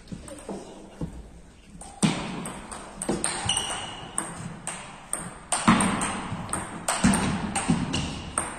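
Table tennis rally: the plastic ball clicking off the bats and bouncing on the table in a quick, irregular series of sharp ticks, in a large hall.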